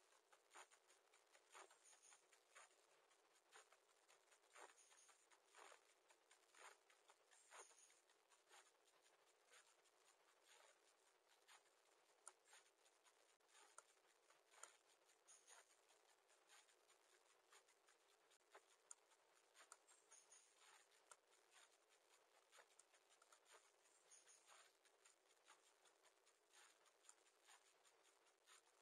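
Near silence, with very faint scratching, rustling and light clicks of nest material as a Japanese tit shifts on her nest inside a wooden nest box.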